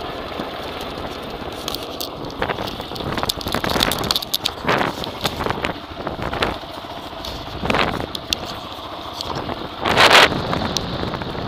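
Wind buffeting and crackling handling noise on a hand-held camera's microphone, over the running of a motorcycle riding on a gravel road. There is a louder burst of wind or rubbing about ten seconds in.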